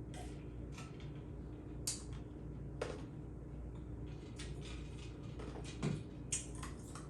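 Close-up eating sounds while eating birria tacos: wet chewing, lip smacks and mouth clicks, irregular and clustered in the second half, the loudest about six seconds in.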